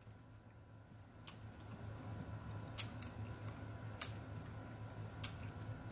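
A person chewing a bite of chocolate close to the microphone, with a few sharp mouth clicks and lip smacks scattered through it.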